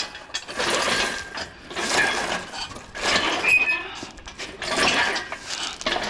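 Steel engine hoist being pushed along on its casters, its frame clanking and its wheels scraping over concrete in uneven surges about once a second; the casters are not rolling well.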